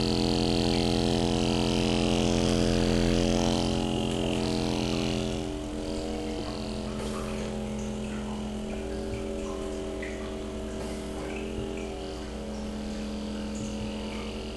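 Electric vacuum suction (cupping) therapy device's pump running with a steady hum and a hiss of air. It drops quieter and thinner about five seconds in.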